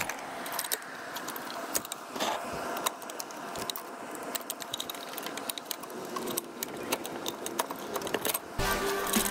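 Scattered light metallic clinks and rattles of hand tools and parts being handled at an electric forklift's drive motor.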